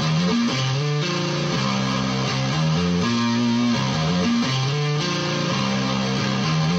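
Electric guitar played through a FuzzCo fuzz pedal into an amplifier: a low single-note riff with a dense, fuzzy tone, repeating about every three seconds.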